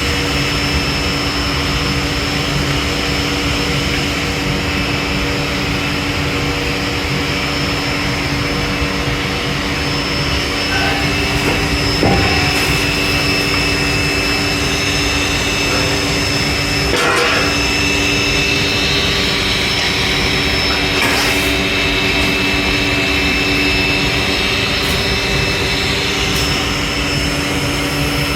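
Industrial machinery running steadily, a loud hum with a constant whine, with a few brief knocks.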